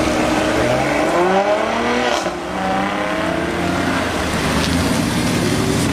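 Car engine revving, its pitch rising in sweeps over the first two seconds, then running on more steadily under throttle.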